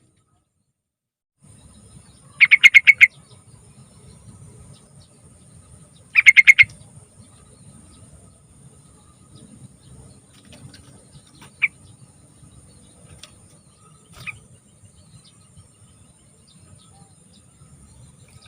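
Sooty-headed bulbul (trucukan) song: two loud short phrases about four seconds apart, each a quick run of five or six notes, then a few faint single notes.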